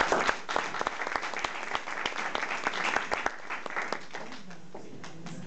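Audience applauding, dense clapping that thins out and dies away about three and a half seconds in, leaving a faint murmur of voices.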